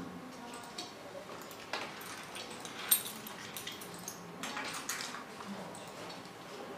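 Quiet meeting-room ambience with scattered small clicks and clinks of things handled on the tables, one sharper click about three seconds in.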